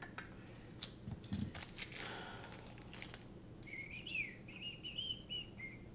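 Carbon-fibre drone frame plates and a screwdriver handled on a silicone work mat: a few light clicks and a knock in the first second and a half, then a brief rustle. From about three and a half seconds in comes a run of high, wavering chirps lasting about two seconds.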